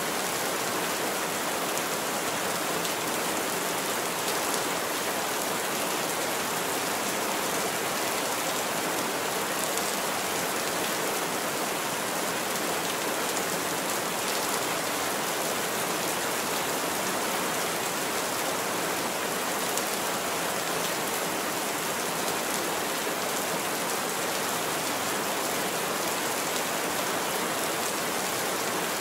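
Heavy rain falling steadily on a roof: an even, unbroken hiss with no thunder.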